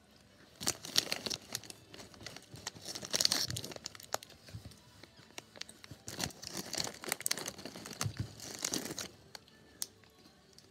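Lay's potato chip bag crinkling and rustling as a hand reaches in, in two bouts of crackling about a second in and again around six seconds in, mixed with chips crunching.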